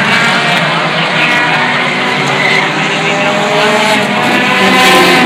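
Stock car engines running at racing speed around a paved short-track oval, several cars' engines overlapping in a steady drone that swells a little near the end as cars come past.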